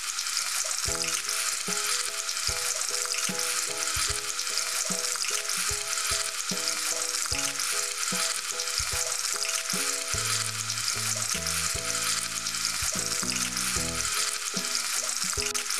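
Cut potato sticks deep-frying in hot oil in an iron kadai: a dense, steady sizzle of bubbling oil throughout.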